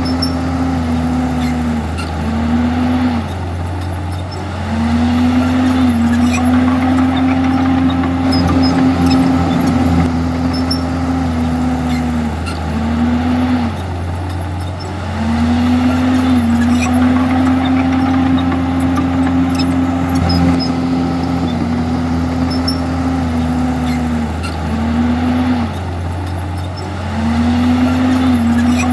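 Diesel engine of a Komatsu D51EX crawler bulldozer running hard, its pitch sagging and climbing back several times as the load on it comes and goes while it pushes stone and soil.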